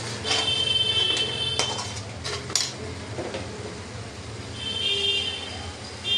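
Metal slotted spoon scraping and clinking against a steel kadhai as frying masala is stirred, with a few sharp clinks about two seconds in. A high, steady electronic beep sounds twice in the background, each lasting about a second.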